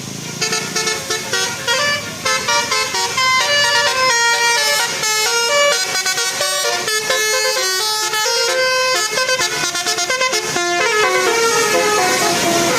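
Tour bus 'telolet' Basuri multi-tone musical horn playing a fast tune of short stepped notes in quick succession. About two seconds before the end the tune stops, leaving a rushing noise.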